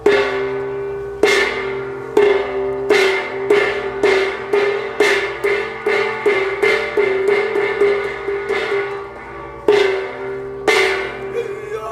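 A metal gong struck over and over, each stroke ringing on with a clear pitch. The strokes quicken to about two a second, then slow to two spaced strokes near the end.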